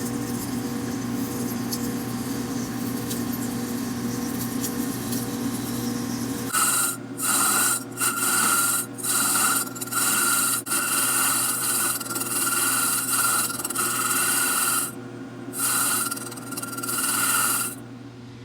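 A lathe running steadily, then, about six and a half seconds in, a loud abrasive rasp with a high whine as the spinning aluminium sleeve is polished in repeated passes, each broken off for a moment; it stops shortly before the end.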